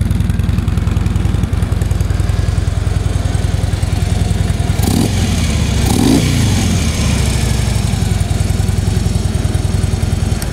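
2013 Harley-Davidson Street Glide's 103 cubic-inch V-twin idling through its factory exhaust, fairly quiet. About five seconds in, one throttle blip makes it rise in pitch and fall back to idle.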